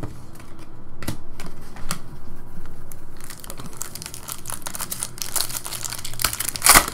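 Foil trading-card pack wrapper crinkling and tearing as hands open it, after a few seconds of light clicks from cards being handled. The crinkling thickens about halfway through, with its loudest crackle just before the end.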